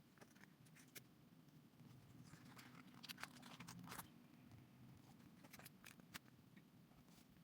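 Near silence: low room hum with scattered faint clicks and ticks, bunched a few seconds in.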